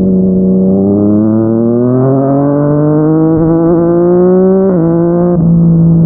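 Yamaha MT-09's inline-three engine through a Yoshimura R55 slip-on exhaust, pulling under throttle with its pitch rising smoothly. Near the end the pitch steps down and then holds steady.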